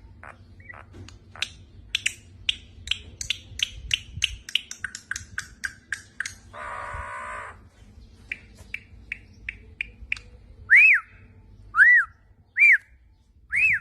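A bird calling: a quick run of sharp chirps, a harsh buzzy call about seven seconds in, then four loud whistled notes that each rise and fall near the end.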